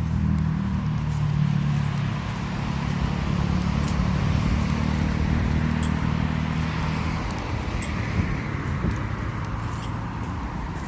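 A motor vehicle running, a steady low engine hum with road noise; the hum fades after about seven seconds while the hiss swells briefly.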